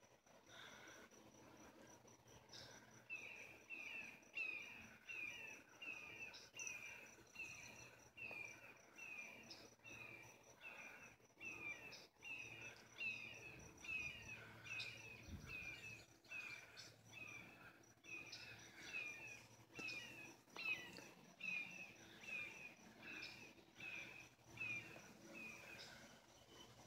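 A hawk calling: a short, high, slurred note repeated over and over, about twice a second, with a couple of brief breaks. A faint, steady insect buzz runs underneath.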